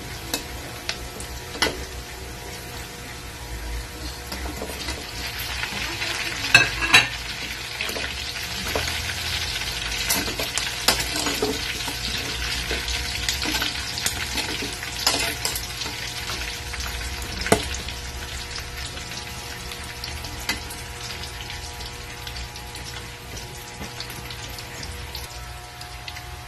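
Pork cubes, garlic and onion sizzling in hot oil in a metal wok. A metal spatula stirs them, clinking and scraping against the pan now and then. The sizzle grows louder a few seconds in and eases off toward the end.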